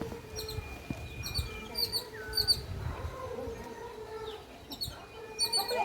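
Birds chirping: short, high-pitched chirps, mostly in quick pairs, repeating every second or so, with lower calls underneath.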